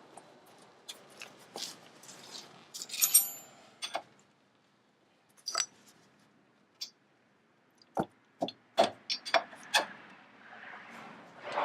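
Metal tools tapping and prying at the wheel hub's metal dust cap to pop it off. Scattered clicks and a ringing metallic clink about three seconds in, then a run of quick sharp taps from about eight to ten seconds in.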